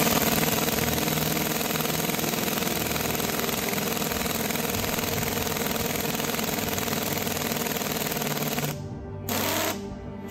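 Pneumatic impact wrench hammering continuously for about nine seconds, then stopping, with one short burst of it near the end.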